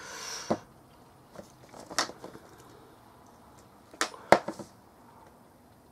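Handling noise from a plastic model kit and glue bottle on a desk. A short rustle ends in a click, a single sharp tap comes about two seconds in, and a quick cluster of clicks, the loudest, comes about four seconds in.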